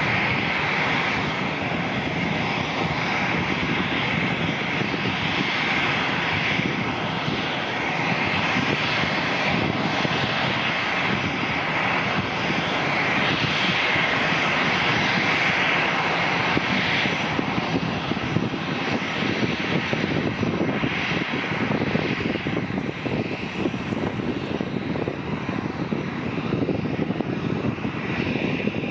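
Cambodia Angkor Air twin-engine jet airliner coming in to land, its turbofan engines giving a steady, continuous noise as it descends on final approach and reaches the runway.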